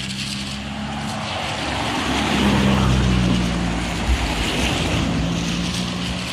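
A vehicle on a wet road, its engine hum and tyre hiss swelling as it passes about halfway through, over steady rain and wind noise on the microphone.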